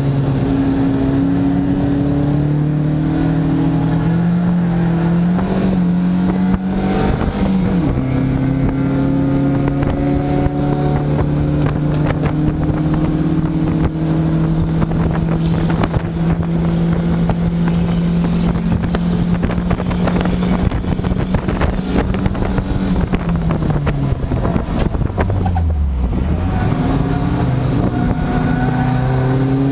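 Race car's engine heard from inside the cabin under hard acceleration, with a quick gear change about seven seconds in, then a long steady pull at high revs. Around twenty-five seconds in the revs fall away sharply as the car slows, then climb again near the end as it accelerates.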